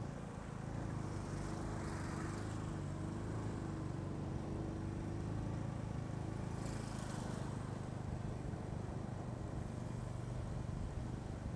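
A motorcycle taxi's small single-cylinder engine running steadily while riding along a road, heard from the bike itself, with wind and road noise over it. There are two brief louder rushes of wind, about two seconds in and around seven seconds.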